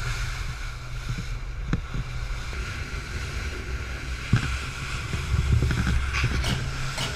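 Motorboat running fast over open water: a steady engine drone under the rush of water and wind, with a couple of short thumps as the hull hits the chop.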